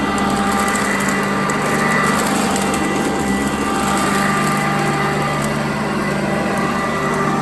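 Sanitaire upright vacuum cleaner running on carpet, a steady motor hum with a few held whining tones.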